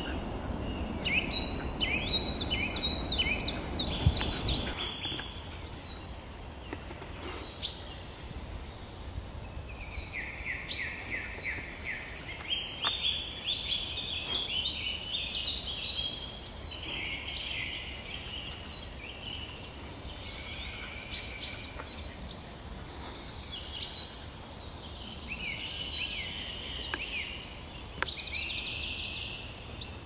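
Several small woodland songbirds singing at once, with short overlapping phrases, trills and quick falling notes throughout. A low rumble sits under the song for the first few seconds.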